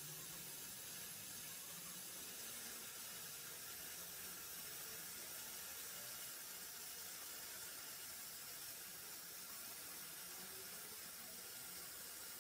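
Faint steady hiss with no distinct events.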